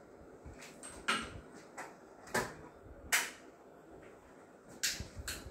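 Five sharp clicks and taps, irregularly spaced a second or so apart, as a floor lamp's power cord, plug and switch are handled to switch it on.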